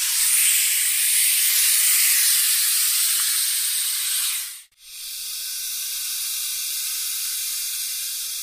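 Snake hissing: two long hisses with a brief break between them about four and a half seconds in, the second a little quieter than the first.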